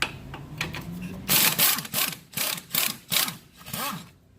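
Hand ratchet on the 18 mm sway bar link nut of a Nissan Sentra's front suspension, worked in about six quick back-and-forth ratcheting strokes after a few clicks at the start.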